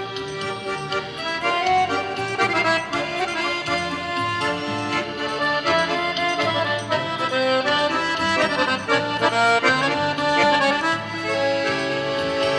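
Piano accordion playing a tune, with a melody over changing bass notes.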